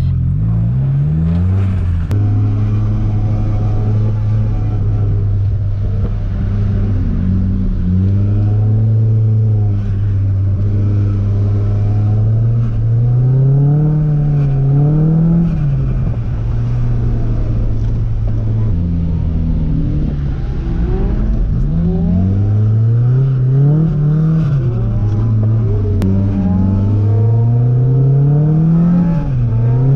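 Car engine under load, held at steady revs for about ten seconds, then revving up and falling back over and over in swings of about a second and a half, the throttle work of a car being drifted.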